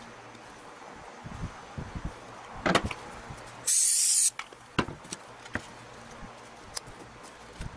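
Hands fitting a sanding belt onto a bench belt sander: scattered clicks, knocks and rustles of the belt and the sander's metal arm. About halfway through comes a loud, sudden burst of high hissing that lasts about half a second.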